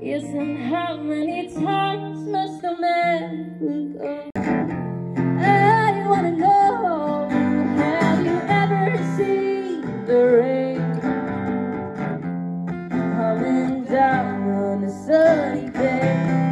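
A woman singing a song live into a microphone, accompanying herself on guitar, with held, wavering notes over steady strummed chords.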